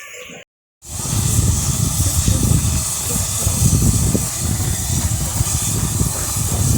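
Steam locomotive hissing steadily over a low, uneven rumble, starting abruptly about a second in after a cut.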